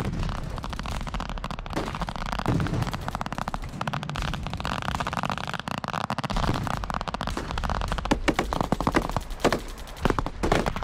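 Live-fire military gunfire: a steady run of rifle shots and machine-gun bursts, with some heavier bangs among them. The firing gets denser and louder near the end.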